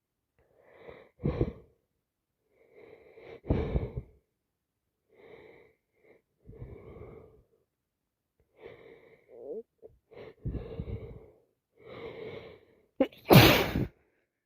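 A person with a heavy cold sneezing repeatedly: two sharp sneezes in the first four seconds, then a run of quieter breathy in-breaths building to the loudest sneeze near the end.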